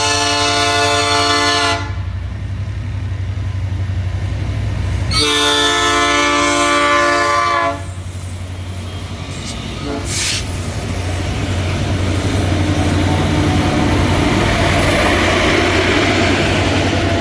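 Diesel freight locomotive horn sounding for a level crossing: one blast ends about two seconds in and a second long blast follows about five seconds in, over the low drone of the diesel engine. The train then passes, its wheels on the rails building into a steady rumble and hiss.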